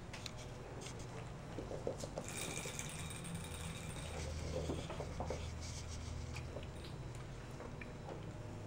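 Faint patter and scuffling of Persian kittens' paws as they scamper and wrestle on the floor, soft scattered taps and rustles over a low steady hum.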